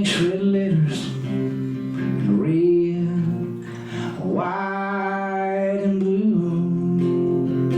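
Acoustic guitar played live, strumming and picking the chords of a country song between sung lines.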